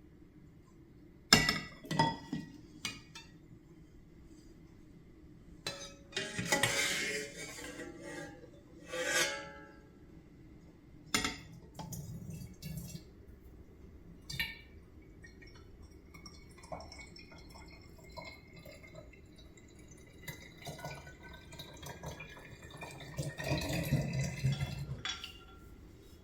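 Glassware and dishes being handled: a few sharp clinks and knocks as items are set down, some rustling handling, then liquid being poured near the end with a faintly rising tone.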